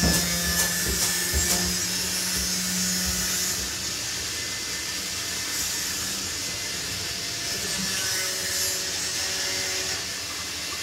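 A metal ridged grill pan being scrubbed clean: a steady rubbing noise, with a few sharp clicks in the first two seconds.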